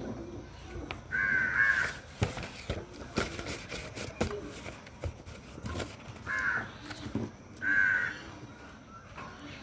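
Crow cawing three times, a longer caw about a second in, then two shorter caws close together near the end.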